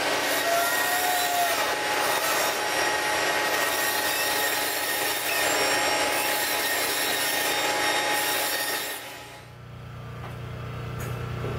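Table saw running and cutting through a foam insulated concrete form block to trim off the nubs along its bottom, a steady sound that stops about nine seconds in.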